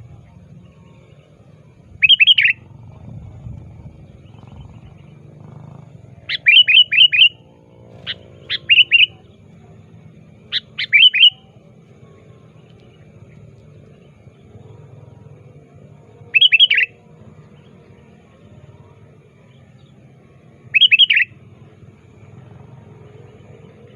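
Sooty-headed bulbul (kutilang) calling in loud, short bursts of three to five quick notes, repeated every few seconds: a male actively calling out to a rival. A low, steady hum runs underneath.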